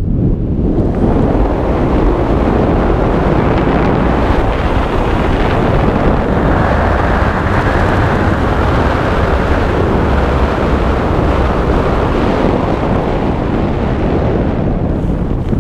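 Air rushing over a head-mounted camera's microphone as a skydiver flies under an open parachute canopy: a loud, steady rumbling wind noise.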